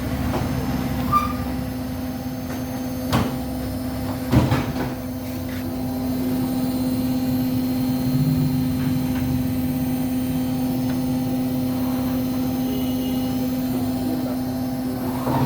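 Bosch washing machine running on test with its drum mounted on a custom-made square-steel-tube spider: a steady hum, with three short knocks in the first five seconds.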